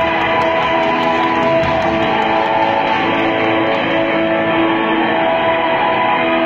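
Worship song music with guitar, playing steadily and loud.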